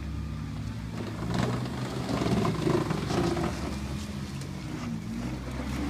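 Daihatsu Terios Kid's small three-cylinder engine pulling the SUV at low speed over a muddy off-road trial section, getting louder from about a second in as it works up the slope.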